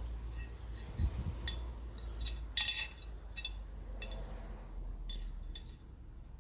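Metal fan parts being handled during teardown: a series of scattered clinks and clicks, with one dull knock about a second in and the loudest clink a little before the middle.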